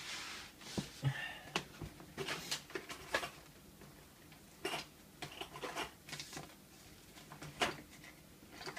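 Irregular small clicks and taps of metal tools and lock parts being handled, a few louder ticks among them, as a lock is being prepared for disassembly.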